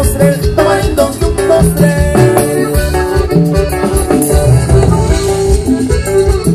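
Latin dance music played loud through big speaker stacks: an instrumental stretch with a steady beat of bass and percussion.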